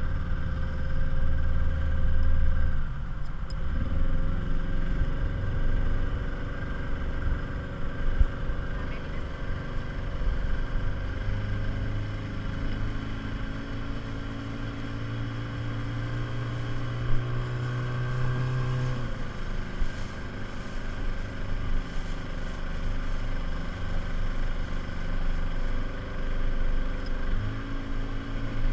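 Small Rhino speedboat's outboard motor running underway, with a steady rush of wind and water. The engine note dips about three seconds in, climbs and holds higher from about eleven to nineteen seconds, drops, then rises again near the end.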